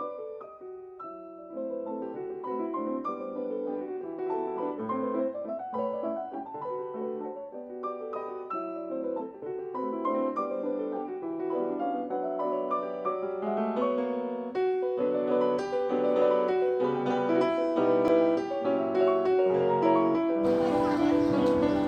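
Solo piano music, a flowing melody with chords, growing louder in the second half; near the end a hiss-like layer of outdoor ambience comes in under the piano.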